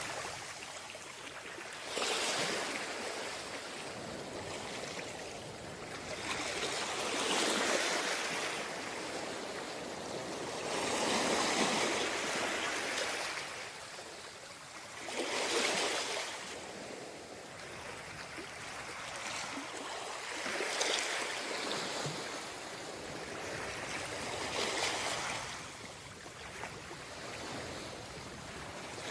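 Small sea waves washing up on a beach, each rush of surf swelling and fading away, one about every four to five seconds.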